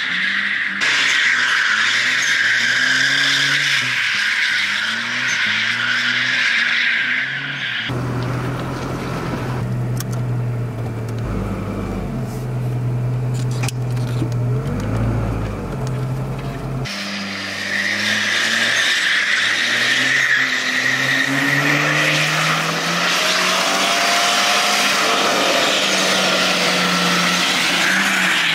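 Volvo 740 sliding sideways with its tyres squealing, while the engine revs rise and fall over and over. For a stretch in the middle, from about 8 to 17 seconds, the squeal stops and a lower, steadier engine drone is heard from inside the car. After that the tyre squeal and climbing revs return.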